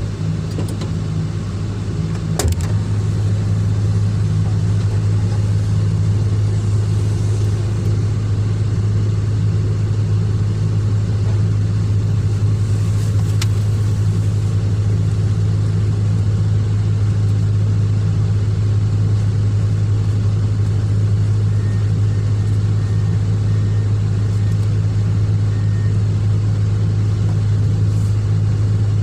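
Hydraulic excavator's diesel engine running at a steady speed, a deep, even drone.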